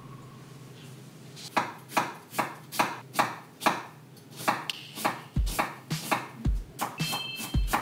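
Chef's knife slicing an onion on a wooden cutting board: crisp cuts that knock the board, starting about a second and a half in at about two or three a second and getting quicker later, with a few deeper knocks of the board among them.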